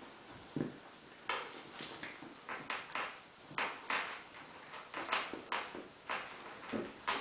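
Two Cairn terriers scuffling in play: irregular short, sharp taps, one or two a second, of claws and paws on a hardwood floor.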